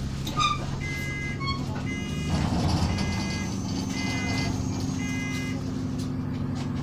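An Alexander Dennis Enviro400 double-decker bus's warning beeper sounds five short beeps about a second apart, after a few quick tones near the start. The bus's engine runs steadily underneath.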